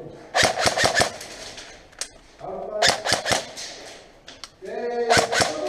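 Airsoft guns firing in three short bursts of rapid sharp cracks: a string of about five or six shots in the first second, then about three near the middle and three more near the end.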